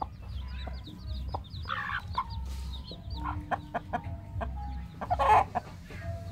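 A hen clucking among her chicks, which peep in rapid, high, falling cheeps. A louder call comes about five seconds in.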